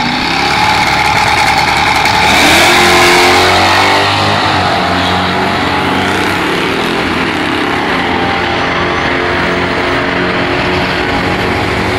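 Drag race car launching from the start line at full throttle, the engine rising sharply in pitch as it accelerates away down the strip. It is loudest about two to three seconds in, then settles to a steady, high engine note as the car pulls away.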